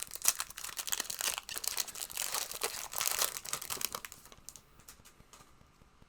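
Plastic trading-card pack wrapper crinkling as it is opened and handled, dense for about four seconds, then dropping to faint rustling.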